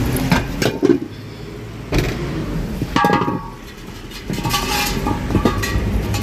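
Knocks and clanks of a steel LPG gas cylinder being lifted out of a car and set down on a tiled floor. The loudest clank, about three seconds in, rings briefly.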